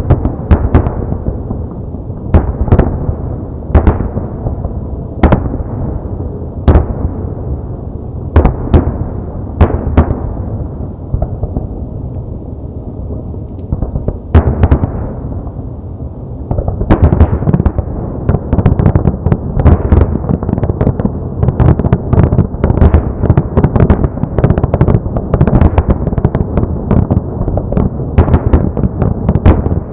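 Aerial firework shells bursting in a display, each boom followed by a rumbling echo, at first every second or two. About halfway through, the bursts come thick and fast in a rapid barrage of bangs.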